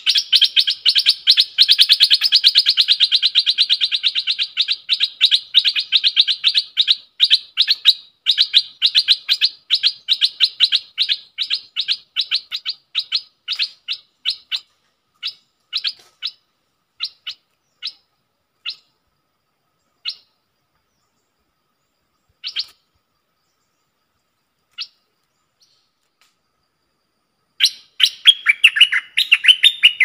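A caged decoy bulbul calling: a fast run of short, sharp chirps that slows to single notes spaced a second or more apart, falls silent, then breaks into a brief burst of warbling song with falling notes near the end.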